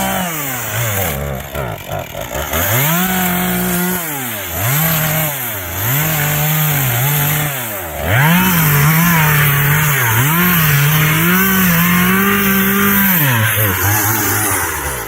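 Petrol chainsaw engine revved up and down over and over, its pitch rising and falling every second or two. About halfway through it gets louder and noisier and holds near full revs, then drops back to a low idle near the end.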